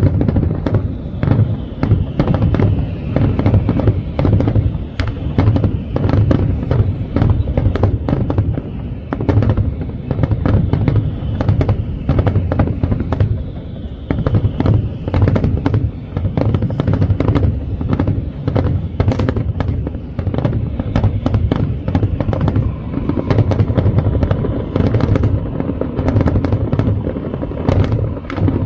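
Dense fireworks barrage: many shells bursting in rapid, overlapping succession, sharp cracks over continuous deep booms, with no pause.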